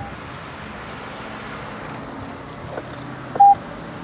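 A single short electronic beep from the car about three and a half seconds in, over a steady low hum.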